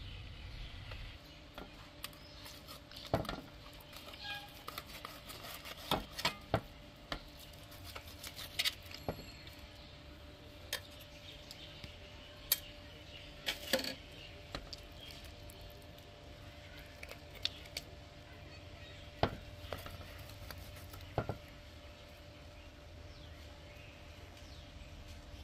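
Scattered light clicks and taps of glazed pork ribs being handled on a steel plate, thicker in the first half. A faint steady hum runs underneath.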